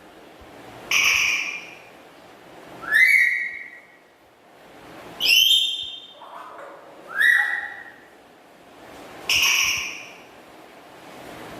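Black-capped lory giving loud, short whistled calls, five in a row about two seconds apart, some sweeping upward in pitch.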